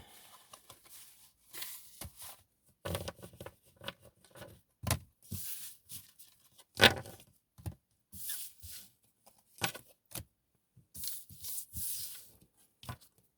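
Tarot cards being handled on a table: a string of irregular papery swishes and slides with light taps and knocks, one sharper snap about halfway through.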